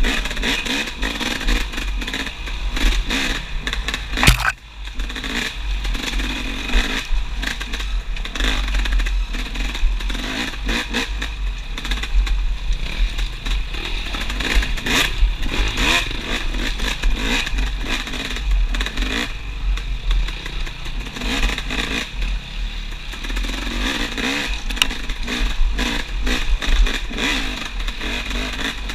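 Off-road motorcycle engine revving up and down as it is ridden over a rough forest trail, with the pitch rising and falling. The sound is heard from a helmet camera, with heavy wind rumble and the clatter of the bike over the ground. A sharp knock comes about four seconds in, and the engine sound briefly drops right after it.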